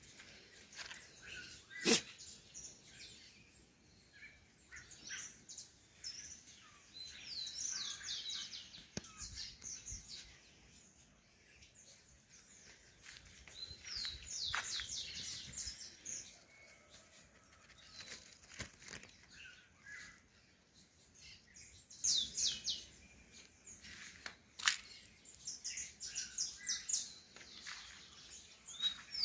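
Small songbirds chirping in quick runs of short, high, downward-sweeping notes, coming in bursts every few seconds. A few sharp clicks or knocks sound among them, the loudest about two seconds in.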